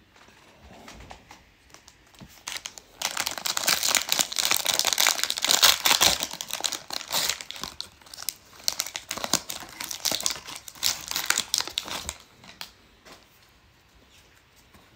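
A baseball card pack's wrapper being torn open and crinkled in the hands: loud crinkling from about three seconds in until about twelve seconds, then quieter rustling as the stack of cards is handled.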